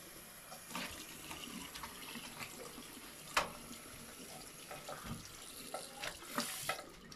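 Tap water running into a bathroom sink basin, with scattered clicks and knocks from handling the tap, the sharpest about three and a half seconds in.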